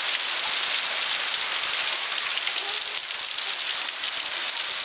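Heavy storm rain pouring down steadily: an even, unbroken hiss of downpour.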